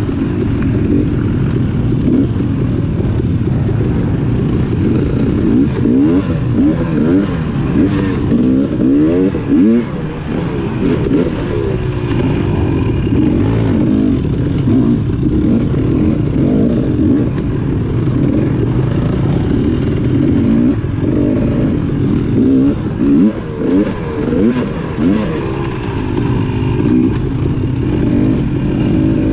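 Off-road dirt bike engine under hard riding, the revs rising and falling over and over with throttle and gear changes.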